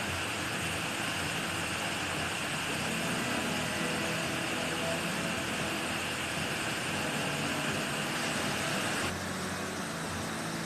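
Waterfall's falling water rushing steadily, dropping a little in level about nine seconds in.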